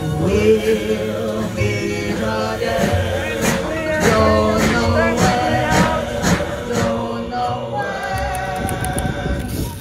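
Music with several voices singing together in held notes.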